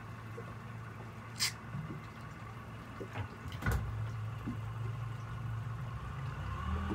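Tour boat's engine running with a low, steady hum that grows a little louder after the middle. A couple of short, sharp high sounds come about one and a half seconds in and again near the middle.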